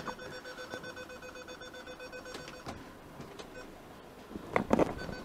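Rapid, even electronic beeping that stops about two and a half seconds in, followed near the end by a few sharp clicks and knocks.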